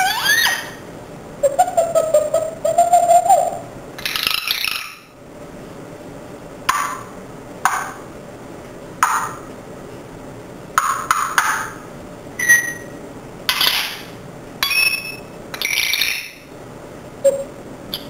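Pet parrot calling in its cage: a low, wavering warble a couple of seconds in, then a string of about ten short, sharp squawks and whistles a second or so apart.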